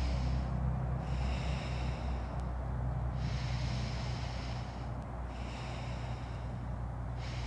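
Slow breathing through one nostril, the other held shut, during alternate nostril breathing: a run of airy in-and-out breaths of about two seconds each, with short pauses between, over a steady low hum.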